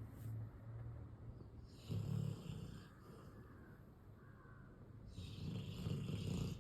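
A Labrador retriever snoring in its sleep, much like a human snore. There is one loud low snore about two seconds in and a longer one near the end, with quieter breathing between them.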